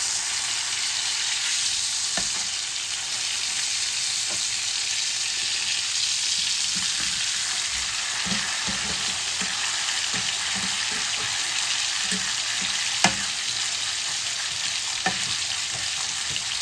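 Beef steaks sizzling in bubbling butter in a ridged grill pan, a steady frying hiss. A metal spoon basting the meat clicks and scrapes against the pan now and then, the sharpest click about two-thirds of the way through.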